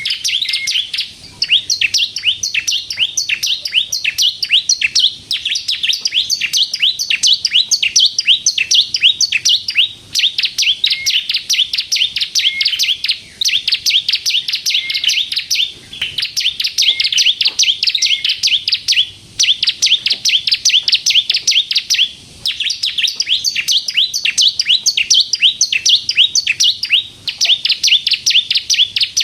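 Ciblek kristal, a variety of bar-winged prinia, singing non-stop. Its song is long runs of rapid, high, sharply rising notes, several a second, broken by short pauses every few seconds.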